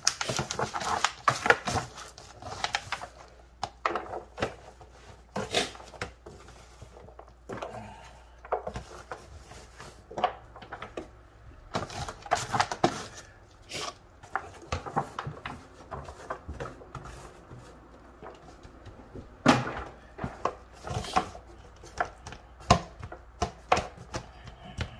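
Disposable aluminium foil pan crinkling and rustling as gloved hands pack seasoning and vegetables around a whole fish, with irregular crackles, scrapes and a few sharper knocks against the foil.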